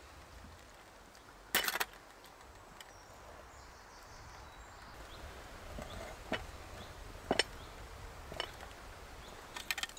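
Hands mixing flour and water into a wet bread dough in a glass bowl: quiet mixing noise with a few sharp clicks, and a brief louder noise about one and a half seconds in.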